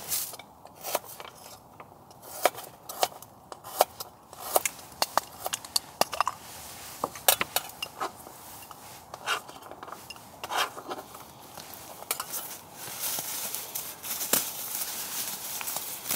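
Irregular light clicks, taps and clatters of camp cookware and utensils being handled. A steady hiss grows louder in the last few seconds.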